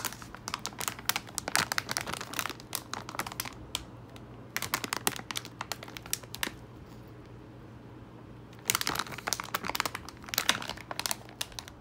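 Metallized anti-static bags around graphics cards crinkling as they are handled and lifted out of the box foam, in three spells of crackling with a quieter pause of about two seconds after the middle one. A faint steady low hum runs underneath.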